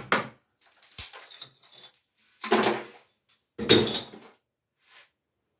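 Ceramic wall tiles being chipped off a wall with a hammer and chisel. There is a sharp knock about a second in, then two longer crunches near the middle as tile and mortar break away.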